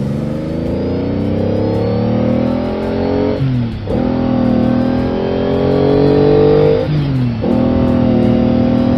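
Car engine accelerating through the gears: its pitch climbs steadily, drops sharply at a gear change about three and a half seconds in and again about seven seconds in, then climbs again.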